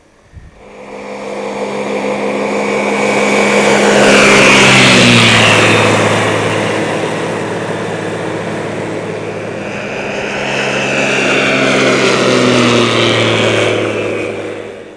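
Skyranger ultralight aircraft flying low overhead: its engine and propeller drone swells to a peak twice, each time dropping in pitch as the plane goes past, and fades away near the end.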